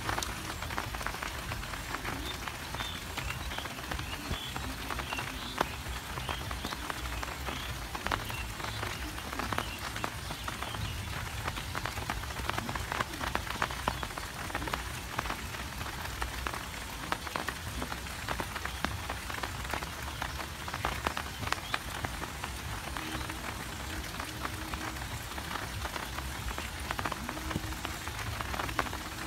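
Steady rain falling on a rice field: a dense patter of many drops on the leaves, with a low rumble underneath.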